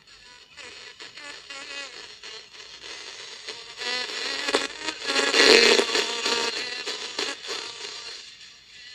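Audio signal sniffed without contact from a car stereo's ribbon cable by a Mr. Carlson super probe and played through an amplified speaker turned all the way up: a thin, radio-like mix of music and voice. It starts faint, is loudest about five and a half seconds in, and fades near the end.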